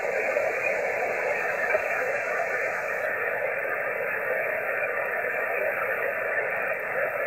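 Steady static hiss from an mcHF-style HF SDR transceiver's speaker, receiving the 20-metre band in upper sideband through a 2.5 kHz filter while it is tuned up the band, with no clear station coming through. The empty band noise goes with what the operator calls horrible band conditions.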